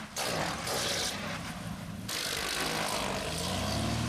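Propeller engines of a twin-engine Cessna running as it comes in low to land with its landing gear up; the engine tone rises and strengthens near the end, over two stretches of hiss.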